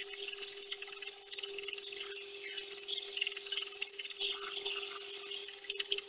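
Horizontal belt sander running with a steady hum while a flat steel knife blank, cut from an old bearing, is pressed face-down onto the moving abrasive belt, giving a continuous gritty scraping hiss with small crackles.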